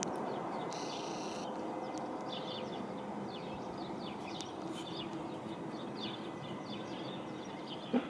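Small birds chirping over and over above a steady distant rumble that slowly fades, with a short click near the end.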